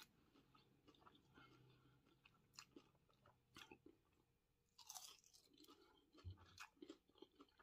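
Faint chewing with scattered soft crunches: a person biting into and eating a breaded catfish nugget.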